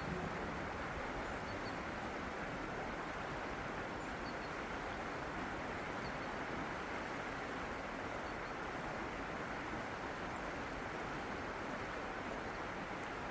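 Steady rushing of running water, even throughout, with a few faint high chirps.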